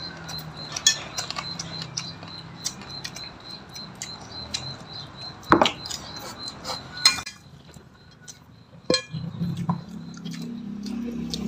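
Metal spoons and forks clinking and scraping on ceramic plates while eating, with two sharper clinks about five and a half and seven seconds in.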